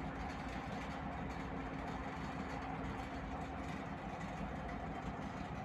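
Steady drone of a ship's engines and machinery: an unchanging hum over an even rumble.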